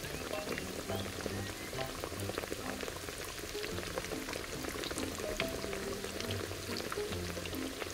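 Small fish frying in hot oil in a tiny cast-iron pan: a dense, steady crackle of popping oil. Background music plays underneath.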